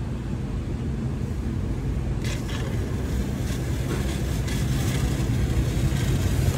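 A steady low machine hum. From about two seconds in, a sputtering hiss as flush solvent and compressed air blow out of the Pajero's air-conditioning line into a plastic catch bag, flushing out the dirt left by the seized compressor.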